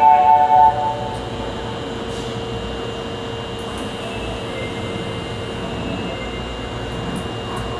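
A platform departure melody ends within the first second. Then the steady hum of a subway platform with a train standing holds, with a constant low tone and a faint high whine that stay level.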